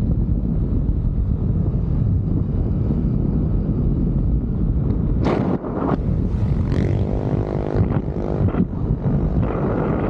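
Wind buffeting the microphone over the steady noise of a vehicle travelling along a road. About halfway there is a short burst of hiss, then a brief pitched tone with evenly spaced overtones lasting about a second.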